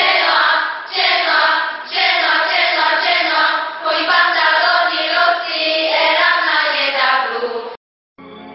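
A group of voices singing together in sung phrases, and it cuts off suddenly near the end.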